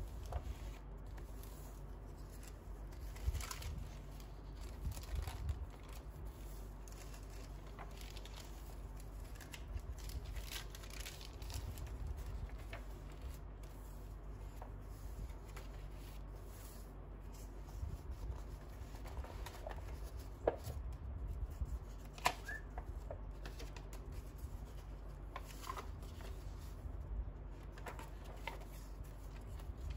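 Pages of a handmade paper junk journal turned and smoothed by hand: soft irregular rustling of paper and kraft paper-bag pages, with a few sharper flicks, the loudest about two-thirds of the way through.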